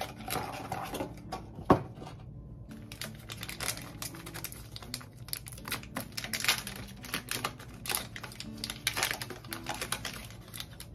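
Packaging being handled: a cardboard pregnancy-test box opened, then the test's foil wrapper crinkling and torn open, a run of irregular crackles and clicks. One sharp knock about two seconds in, as of the box set down on the sink counter, is the loudest sound.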